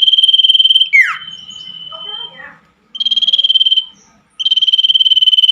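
Loud high trills at one steady pitch, each finely pulsed and lasting one to two seconds, repeat three times, with a quick falling whistle after the first. The sound is like a cricket or a small frog, on a night sound track played to common ioras.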